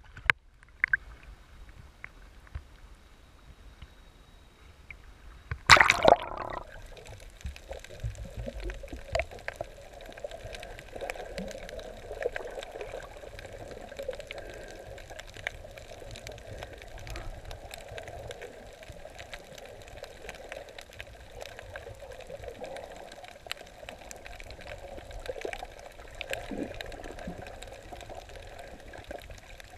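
Water splashing over an action camera as it dips under the surface about six seconds in, then muffled underwater sound: a steady wash of water with fine crackling clicks.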